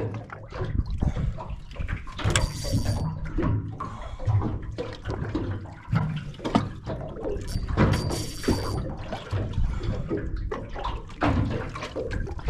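Water sloshing and slapping around a small fishing boat, with an uneven low rumble throughout. Two short, high hissing bursts come about two and a half and eight seconds in.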